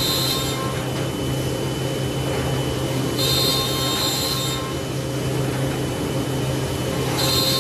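Four-head CNC router for finishing wooden table and chair legs, running with its spindles cutting. A steady machine hum with a higher hissing cutting noise that swells about every four seconds.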